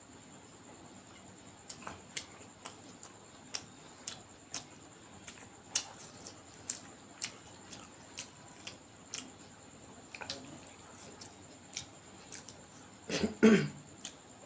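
Close-miked eating sounds: sharp, irregular mouth clicks and smacks of chewing, one or two a second. Near the end comes a short, louder cough.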